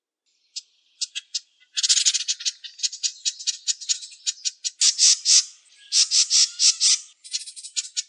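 Wren singing: fast, high-pitched trills and rattling runs of notes, starting about half a second in, in several phrases with short breaks between them.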